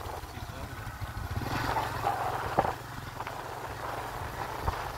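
Steady low rumble of a moving vehicle's engine, with a sharp knock about halfway through and another near the end.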